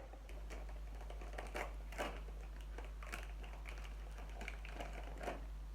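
Small toy packaging being handled and opened: irregular clicks and crinkling of little cardboard boxes and plastic sachets, over a steady low hum.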